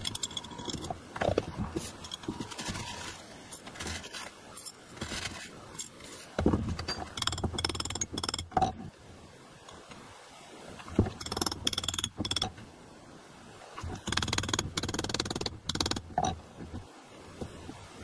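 Metal spoon scraping and clinking in a tin dish and against a small square steel box, with small steel self-tapping screws rattling as they are packed into it. The clinks and scrapes come in irregular clusters with short pauses between.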